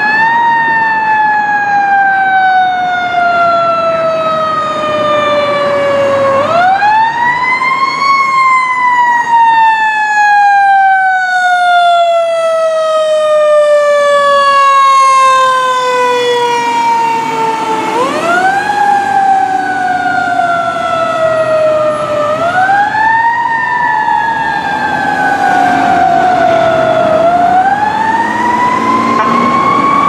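Fire truck siren wailing as the aerial ladder truck passes. It winds up quickly about five times, each time sliding slowly back down in pitch, over the low running of the truck's engine.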